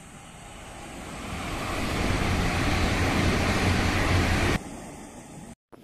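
E5 series Shinkansen passing at high speed: a rushing noise that builds over the first two seconds, holds loud, then cuts off suddenly about four and a half seconds in.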